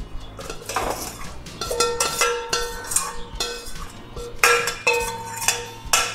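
Chopped okra tipped from a steel bowl into a steel kadhai, with a run of metallic clinks and ringing as the bowl is knocked against the pan to empty it. The loudest strikes come past the middle and near the end.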